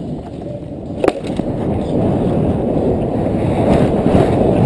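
Rumbling, buffeting movement noise on a rider's helmet camera as the pony gallops over the sand arena, getting louder from about two seconds in. A single sharp knock sounds about a second in.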